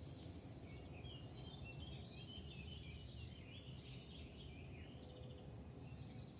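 Faint morning chorus of many small birds, a busy mix of overlapping chirps and trills, over a steady low rumble of road traffic.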